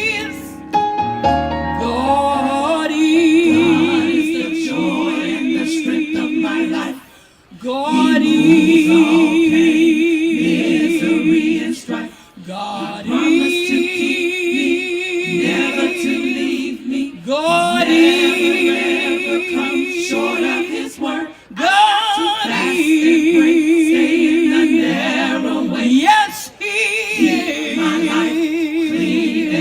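Gospel choir singing long, held phrases with vibrato, with a short break between phrases every four to five seconds.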